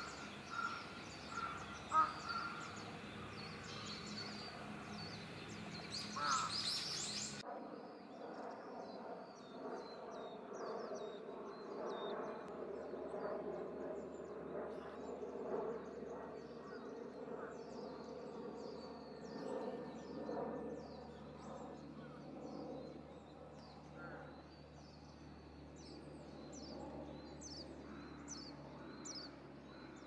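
Coal tits calling: many short, thin, high-pitched notes, each falling in pitch, repeated throughout. In the first few seconds a lower note repeats about twice a second, and a lower, harsher calling sits in the background through the middle.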